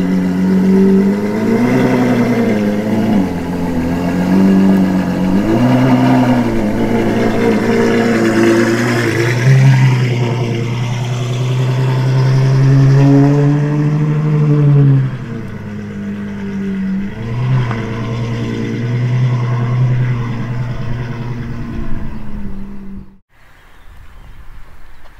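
Novitec-tuned Ferrari 812 Superfast's naturally aspirated V12 pulling away at low speed. Repeated throttle blips make the pitch rise and fall, with a longer held rev in the middle. The engine sound stops abruptly near the end.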